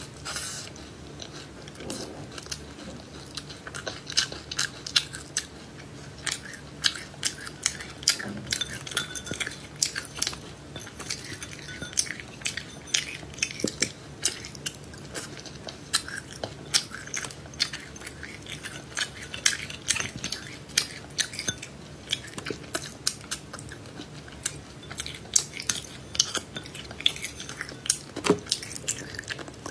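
A person chewing and crunching seeds: dense, quick, sharp crackles, several a second.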